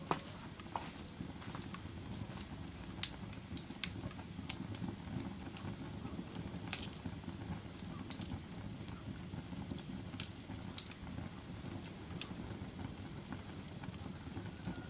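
Fire burning with a steady low rumble and sharp, irregular crackles and pops, a few of them louder than the rest.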